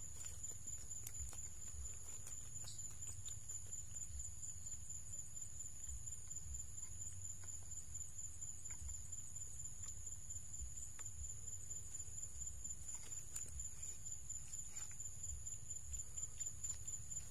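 Insects keeping up one steady, high-pitched drone, with scattered faint ticks and a low rumble beneath.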